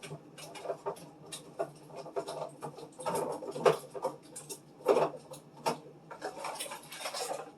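Small plastic food cups and containers being handled and set into a refrigerator bin: irregular light clicks, taps and rustling, with a few louder knocks about three and five seconds in.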